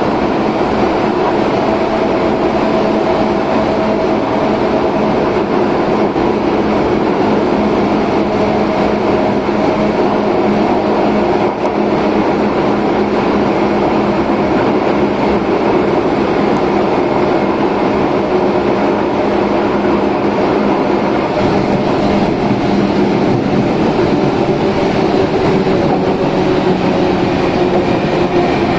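Running sound of an Izukyu 8000 series electric train, heard from inside the passenger car: a steady rumble with a low hum from its Hitachi-made traction equipment, the tones drifting slowly in pitch as the speed changes.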